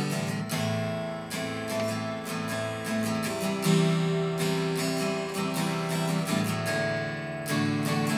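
Guitar in standard tuning strumming chords in a steady rhythm.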